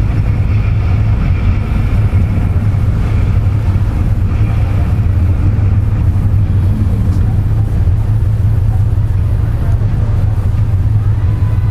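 Steady low engine drone that holds an even level throughout, with no change in pitch.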